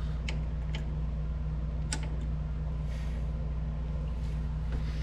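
A few faint metallic clicks as needle-nose pliers work a cotter pin out of a ball-joint castle nut, over a steady low hum.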